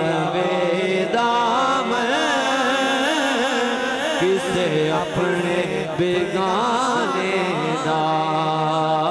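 A man singing a devotional kalam into a microphone, in long held notes with wavering ornaments, over a steady low drone.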